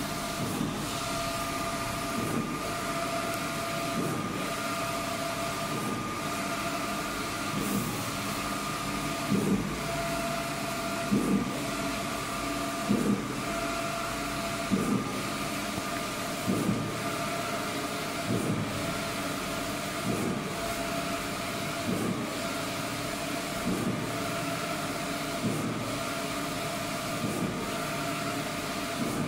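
Large-format inkjet printer printing, its print-head carriage sweeping back and forth across the media: a steady motor whine with a soft thump about every two seconds.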